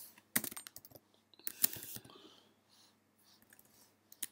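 Typing on a computer keyboard: scattered key clicks, a quick run about half a second in and the loudest around a second and a half in, then fainter, sparser taps.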